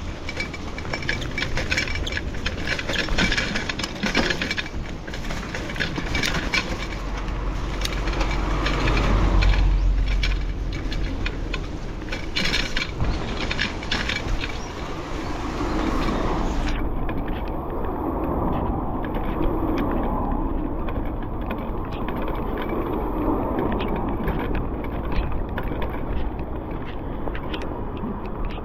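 Outdoor traffic noise with wind rumbling on the microphone, swelling about a third of the way through, and scattered clicks and rattles.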